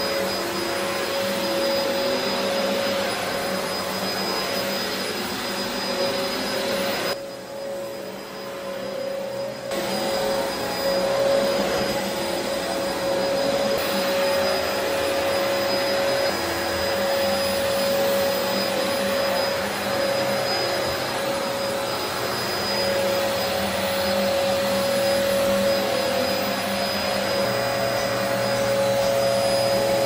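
Dyson DC04 upright vacuum cleaner running over a carpet rug: a steady motor whine over the rush of suction, briefly duller about seven seconds in.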